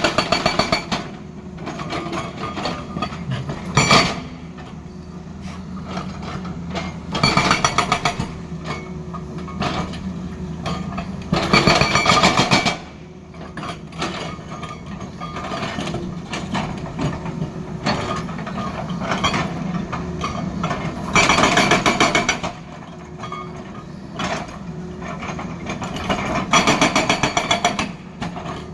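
Tata Hitachi excavator's hydraulic rock breaker hammering hard stone in five short bursts of rapid blows, over the steady running of the excavator's diesel engine. A single loud knock comes about four seconds in.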